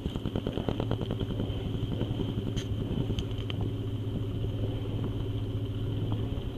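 Sailboat's engine running steadily with the boat under way at low speed: a low hum with fast, regular chugging, louder from the very start.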